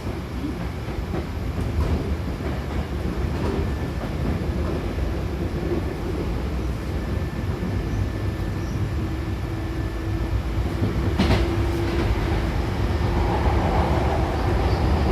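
Hankyu Kyoto Line electric train running: a steady low rumble of wheels and running gear, with a few single clicks over the rails. A steady hum comes in partway through, and the noise grows louder near the end.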